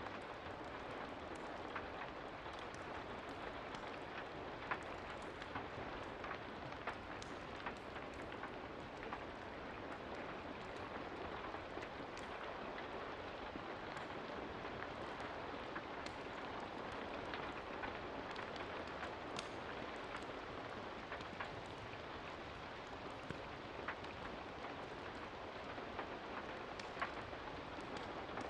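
Steady rain falling, an even hiss with many scattered sharp clicks and ticks throughout.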